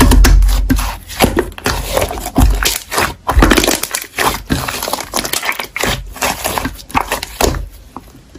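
Slime being squished and pressed by hand, giving a dense run of crackling clicks and small pops as air pockets burst, with soft low thumps of handling near the start.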